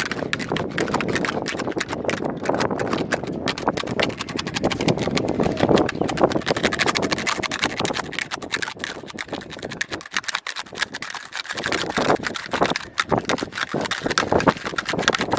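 Fast, continuous tapping and clicking on a plastic kolukattai (modak) mould, with a short lull about ten seconds in.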